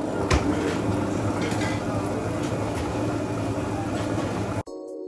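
Busy ambient bustle of a crowded place: a steady wash of noise with scattered clatter and knocks and a faint murmur of voices, one sharp knock about a third of a second in. About four and a half seconds in it cuts off abruptly to electronic background music.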